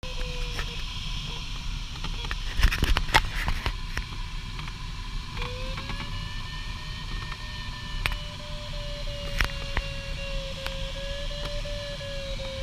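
Airflow hissing steadily around a glider's cockpit in cruise, with an electronic variometer's continuous audio tone that cuts out just under a second in and comes back about five seconds in, its pitch rising a little and then wavering gently. A few knocks and cockpit rattles around three seconds in.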